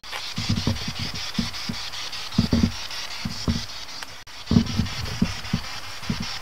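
Footsteps, irregular soft thumps about two or three a second, over a steady high hiss.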